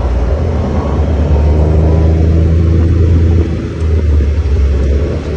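ATV engine running at a steady speed, its pitch holding nearly level, with a brief dip in loudness about three and a half seconds in.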